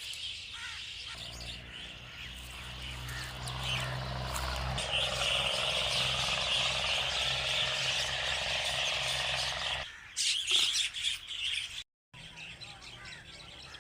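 Myna birds chirping and calling, a dense chatter that grows stronger midway, over a steady low hum from about a second in until near the end. A few louder, sharper calls follow, and the sound cuts out briefly near the end.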